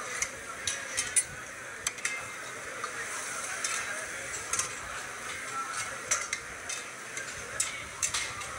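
Lamb pieces sizzling and frying in a black karahi (wok) over a wood fire, with a long metal spatula stirring and scraping the meat and clinking against the pan now and then.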